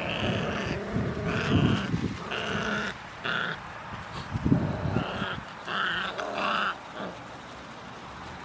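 Puppies play-fighting, growling and squealing in short repeated calls about a second apart, going quieter for the last second or so.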